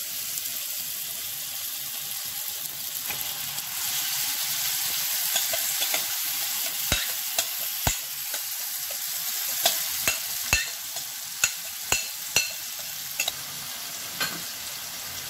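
Marinated chicken sizzling in a hot pan of fried onion-tomato masala, the sizzle growing louder about four seconds in as it heats up. From about seven seconds a spatula clicks and knocks against the pan, a dozen or so times, as the chicken is stirred.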